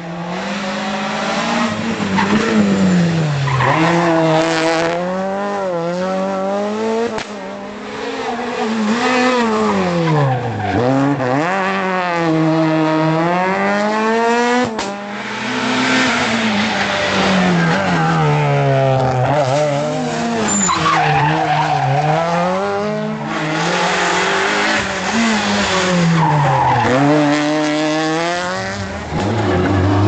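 Renault Clio R3 rally cars' 2.0-litre four-cylinder engines revving hard through the gears, the pitch climbing and dropping again and again with the shifts and the braking for corners. Several cars pass one after another, with tyres squealing at times.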